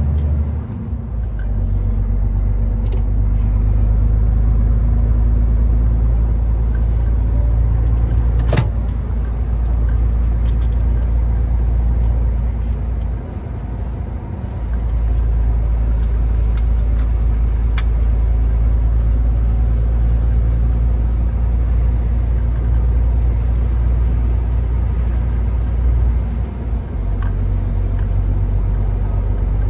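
Heavy truck's diesel engine running steadily under way, a low drone that dips briefly a few times. Two sharp clicks cut through it, one about a third of the way in and one past the middle.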